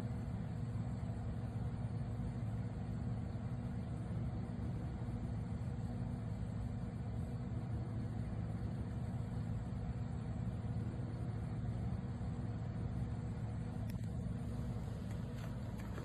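Steady low hum of a BougeRV CRPRO 30-quart 12 V compressor fridge running.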